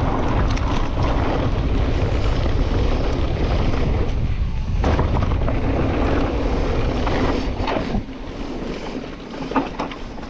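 Wind buffeting the microphone and a mountain bike's tyres rolling over a dirt trail on a fast descent, a loud steady rush with a deep rumble and a few sharp knocks from the bike. The rush drops off about eight seconds in.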